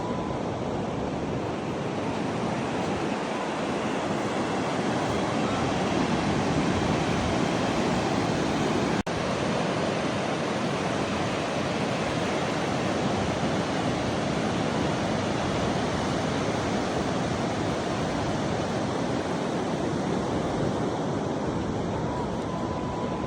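Pacific Ocean surf rushing steadily, with some wind. The sound drops out for an instant about nine seconds in.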